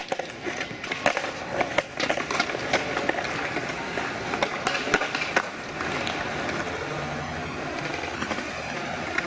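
Skateboards at a concrete skatepark: wheels rolling on concrete, with many sharp clacks and knocks of boards for the first five seconds or so, then a steadier rolling noise with fewer knocks.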